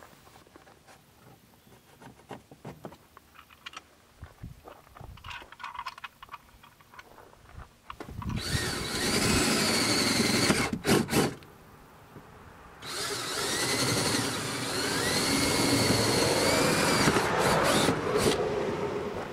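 Cordless drill drilling in two spells: about three seconds with a couple of brief stops, then about six seconds more, its motor whine wavering in pitch as the bit bites. Before the drilling, light handling clicks and taps.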